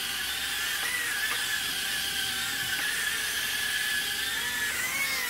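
The four tiny brushed motors and propellers of an Eachine micro quadcopter whining steadily in flight. The pitch wavers slightly as the motors correct.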